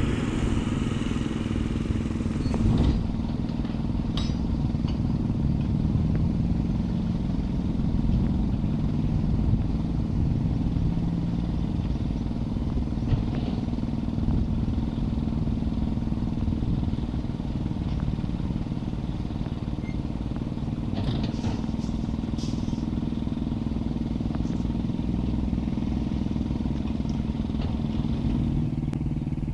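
Diesel engines of heavy earthmoving machinery running steadily at a worksite, with a few short clatters.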